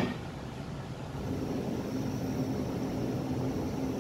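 Camping gas burner flame running with a steady rushing hiss and hum that grows louder about a second in. A single sharp knock right at the start.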